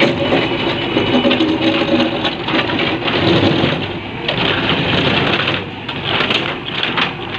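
JCB 3DX backhoe loader's diesel engine running hard with a fast low pulsing, its level rising and falling, as the machine works to free itself from deep compost it is stuck in.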